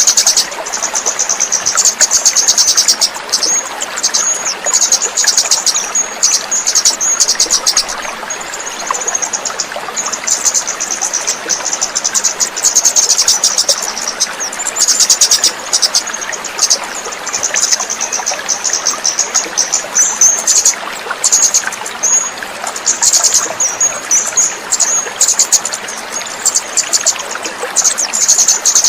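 Orange-headed thrush (kemade) singing a fast, almost unbroken run of high, chattering notes with brief pauses, over a steady rush of running water.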